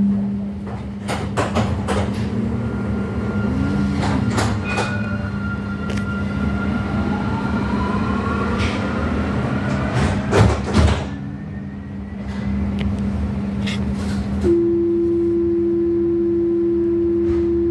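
Tram standing at a stop: a steady low electrical hum from its equipment, with scattered knocks and clatter, loudest about two-thirds of the way in. Near the end comes a steady warning tone lasting about three seconds, the door signal.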